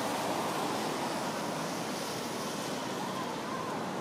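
Steady city street noise: a streetcar moving off along the track amid the even hum of road traffic.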